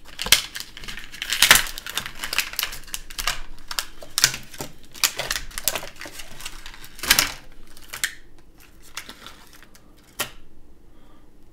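Plastic and cardboard toy packaging being handled: irregular crackling, rustling and clicking, with sharper snaps about a second and a half and seven seconds in, growing quieter near the end.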